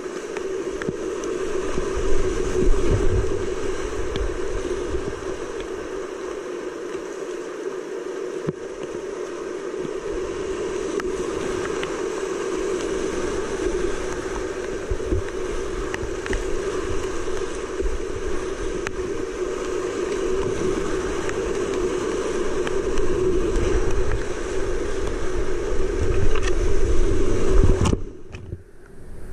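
Steady rush of whitewater rapids on a high-running creek, heard from a kayak paddling through them. Near the end the sound drops suddenly and goes muffled for about a second as the microphone is buried in foaming water, then the rush comes back.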